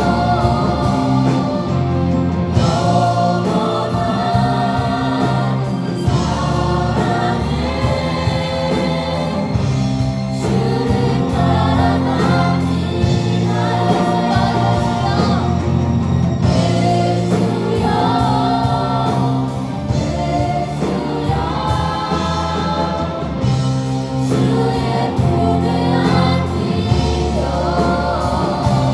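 Group of singers performing a gospel praise song with a steady band accompaniment.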